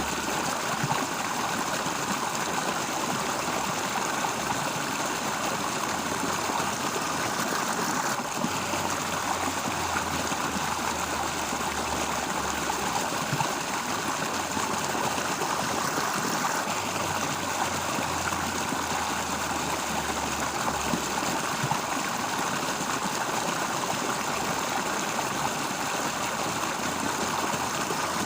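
Stream water flowing steadily, a continuous even rush.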